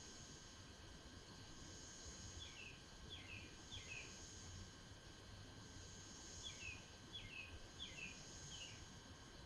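Faint bird calls: two runs of quick, short, falling chirps, about two and a half seconds in and again about six and a half seconds in, over steady insect trilling and a low rumble of background noise.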